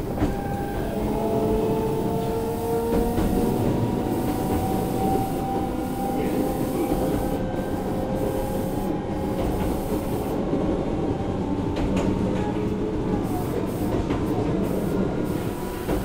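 Osaka Municipal Subway 66 series train running, its Mitsubishi IGBT inverter-driven traction motors whining in several slowly shifting tones over a steady rumble of wheels on rail. The rumble grows louder just at the start as the train picks up speed.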